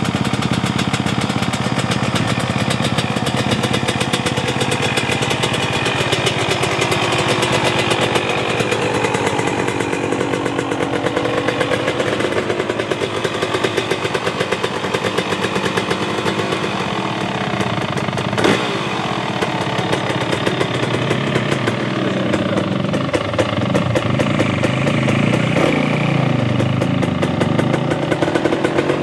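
2023 KTM 250 SX single-cylinder two-stroke motocross engine running with a rapid crackling exhaust note, its revs rising and falling several times, most clearly in the last ten seconds.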